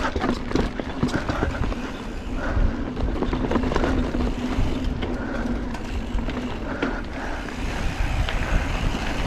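Giant Trance 3 full-suspension mountain bike riding a dirt singletrack: tyres rolling over the trail with frequent clicks and rattles from the bike, over a steady rumble of wind on the GoPro microphone.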